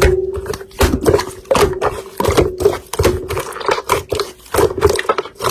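Slime being squeezed and pressed by hand, giving a quick, irregular run of sticky clicks and pops over a steady low tone.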